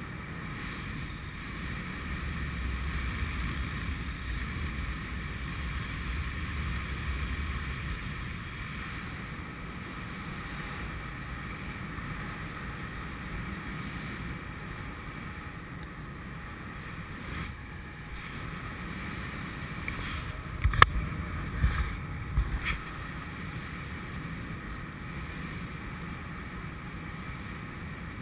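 Steady wind rush over a camera microphone in paraglider flight, with a low rumble in the first third. A few sharp knocks on the camera come about two-thirds of the way through.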